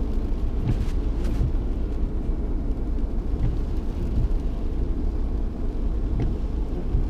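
Car driving on a rain-soaked road, heard from inside the cabin: a steady low rumble of tyre and engine noise, with a few light ticks.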